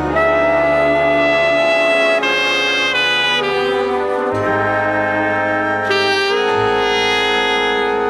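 Jazz orchestra recording: brass and saxophones holding long chords over a bass that moves to a new note about four seconds in and again near the end.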